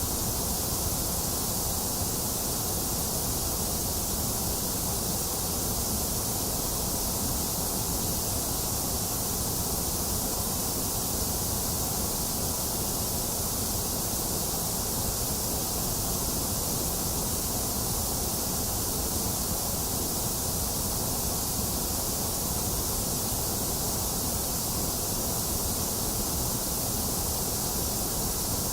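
Box fan running steadily together with steady rain: one even, unchanging hiss, bright on top with a lower rush beneath.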